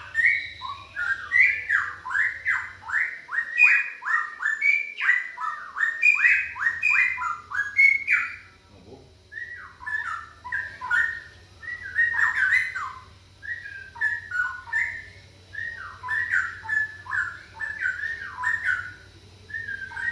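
Bird song: fast runs of short whistled notes sliding up and down, with a brief pause partway through, over a faint steady hum.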